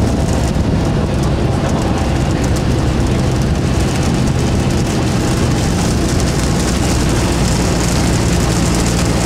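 Cessna 172's four-cylinder Lycoming engine and propeller droning steadily inside the cabin on final approach, with a constant rush of airflow and rain over the airframe.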